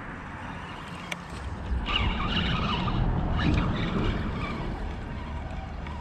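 Road traffic passing on the bridge: tyre and engine noise that swells about two seconds in and eases off again after the middle.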